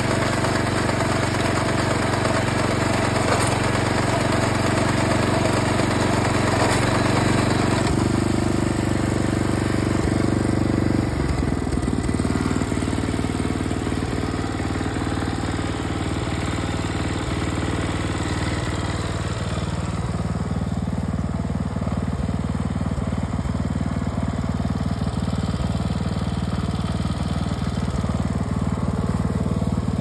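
Kubota RA30 walk-behind rice binder's small engine running steadily as the machine cuts and ties rice. Its tone changes about eleven seconds in and again around twenty seconds in.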